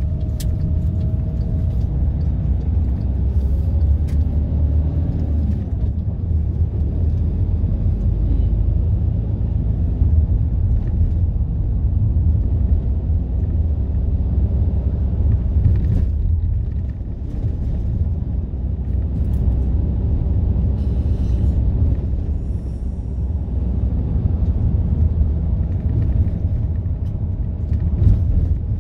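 Cabin noise of a Volkswagen Transporter T6 van on the move: a steady low rumble of engine and road noise, with the engine note rising and falling in the first few seconds.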